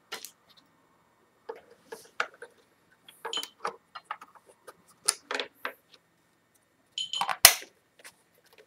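Hard plastic housing of a TP-Link TL-WA5210G outdoor wireless unit clicking and knocking as it is handled in the hands: a series of short, sharp clicks, with the loudest knock near the end.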